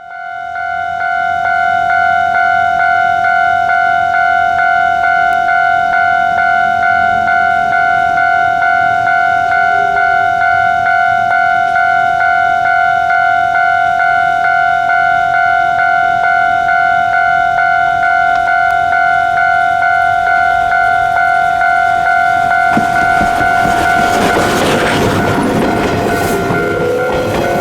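Railway level-crossing warning alarm sounding one steady ringing tone. About 23 seconds in, the rumble and clatter of the approaching steam train rise beneath it.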